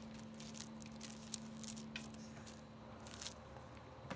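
Light scratchy rustles and ticks, scattered every second or so, as a kitten bats at a dangling string, with a faint steady hum underneath.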